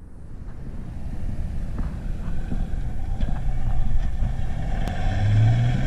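Dodge Ram pickup's Cummins diesel engine running under load through soft sand, growing steadily louder as the truck comes closer, with a strong low engine drone near the end.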